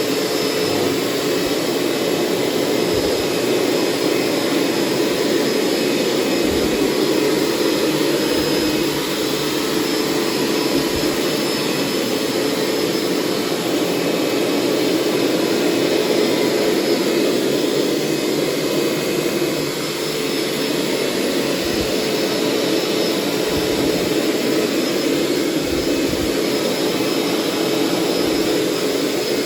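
Hoover SteamVac Plus carpet cleaner running steadily while shampooing and extracting, its wind-tunnel-style suction motor giving a constant rushing whine with a steady hum-like tone.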